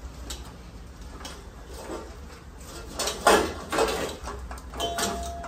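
Steel kitchen pots and vessels knocking and clattering as one is taken out, with a few loud clanks about three seconds in, then a thin ringing tone near the end.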